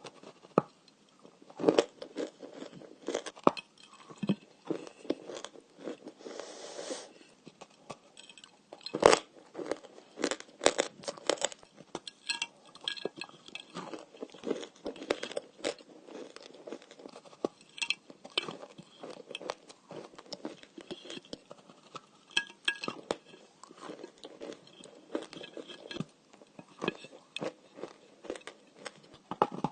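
Close-up crunching and chewing of dry, crumbly edible clay: repeated bites that crack and crunch, followed by chewing, in an irregular run of sharp crackles.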